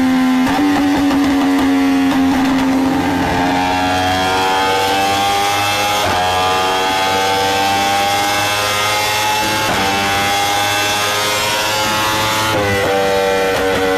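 2015 Yamaha YZF-R1's crossplane inline-four running loud through an Arrow Pro-Race exhaust under load on a dyno, its pitch climbing slowly. There are brief breaks about six and ten seconds in, and the pitch drops near the end.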